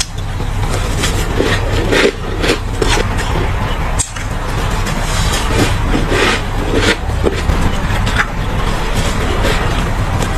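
Close-miked crunching of freezer frost and ice being bitten and chewed: irregular crisp crunches about once or twice a second, a sharp one about four seconds in, over a steady low rumble.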